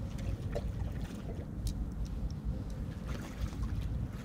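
Wind rumbling on the microphone, with a few faint scattered clicks.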